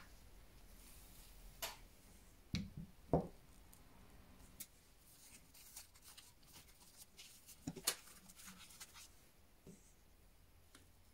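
Quiet handling at a watchmaker's bench: scattered light clicks and knocks as a watch case and a case holder are handled, the loudest about three seconds in, with soft rustling of a foam sheet laid over the holder as the watch is set into it.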